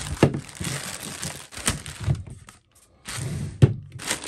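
Clear plastic bag crinkling as plastic figure pieces are handled, with a few sharp knocks of hard plastic on a table, the loudest about three and a half seconds in.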